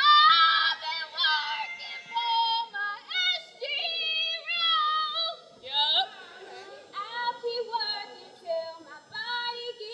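Women's voices singing in high, loud phrases with short gaps between them.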